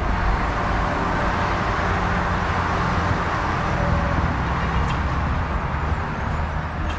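Steady rush of wind and road noise from a moving vehicle, with a low rumble underneath, starting abruptly.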